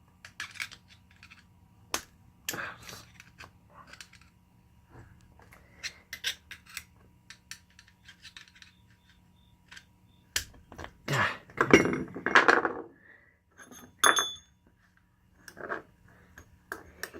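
Steel tools and parts of a Spartan Locker clicking, scraping and clinking as flat-blade screwdrivers pry its spring-loaded pins and cups. There is a louder run of scraping clatter about two-thirds through, then a single metal clink that rings briefly.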